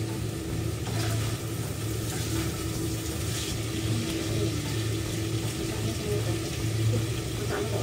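Food sizzling in a wok as it is stir-fried, with a metal spatula scraping the pan a few times, over a steady low hum.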